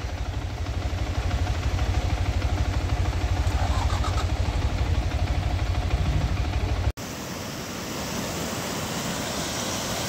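Motorcycle engine idling with a fast, even low throb, stopped in traffic. About seven seconds in it cuts off abruptly, and a steady rush of a fast-flowing mountain river follows.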